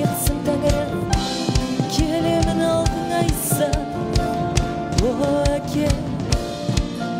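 Live worship band playing a praise song, with a drum kit keeping a steady beat under guitars and keyboard, and singers leading the Kazakh lyrics.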